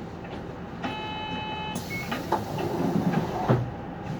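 Inside a city bus halted at a stop with its engine running: a steady electronic tone sounds for about a second, then comes a hiss lasting about two seconds with a short high beep, and a few clicks and knocks.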